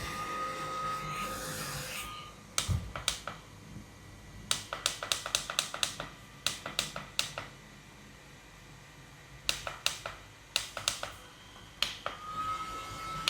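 Nu Republic Flo Ice handheld fan: its small motor whines with a thin high tone over the first two seconds and again near the end, where the pitch rises slightly. In between come runs of quick small clicks, which fit its speed button being pressed repeatedly.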